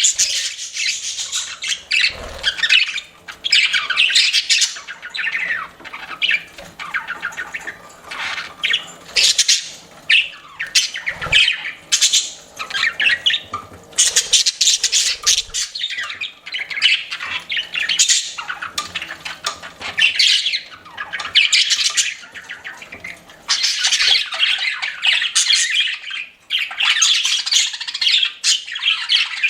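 Pet budgerigars chattering: a dense, continuous run of warbles, chirps and harsh squawks with only brief gaps.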